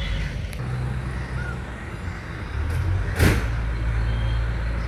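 Old MSRTC bus diesel engine idling with a steady low rumble that grows louder about two and a half seconds in. Just after three seconds, a short sharp hiss of air.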